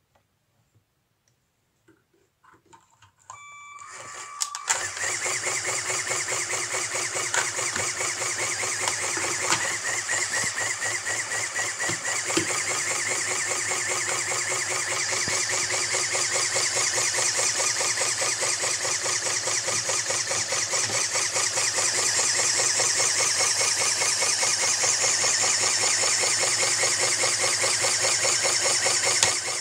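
LEGO pneumatic engine and its plastic gear train starting up a few seconds in, then running fast and steady with a rapid, even rattling whir.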